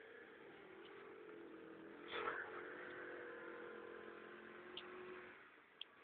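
Kymco scooter's small engine running, faint and distant, while it rides circles through snow. Its pitch drifts a little and fades away about five seconds in. A brief louder sound comes about two seconds in.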